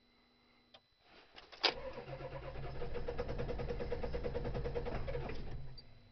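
Car starter cranking a cold engine in an even rhythm for about four seconds without it catching, then stopping: a no-start in freezing cold. A click sounds just before the cranking begins.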